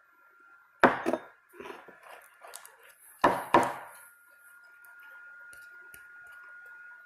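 Bottles, bowls and utensils being handled and set down while making slime: sharp knocks and clinks, loudest in two clusters about a second in and a little past three seconds, with lighter taps between, over a faint steady whine.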